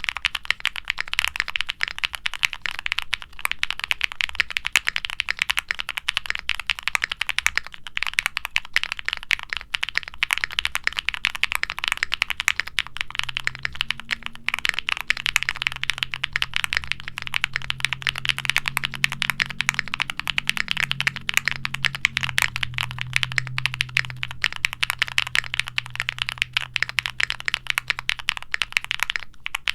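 Steady, fast typing on a custom 65% mechanical keyboard: a Qwertykeys Neo65 aluminium case with a POM plate, gasket mount and foam dampening, fitted with lubed Gateron Baby Kangaroo tactile switches with nylon top housings under double-shot PBT keycaps. The keys make a dense run of short clicks, the marbly bottom-out these switches are known for.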